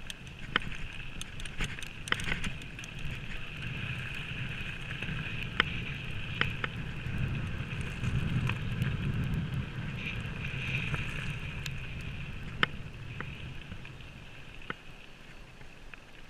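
Mountain bike rolling over a gravel track: a steady rumble of tyres on loose stones, with sharp clicks and knocks as the bike rattles over the gravel. It gets quieter near the end as the bike slows to a stop.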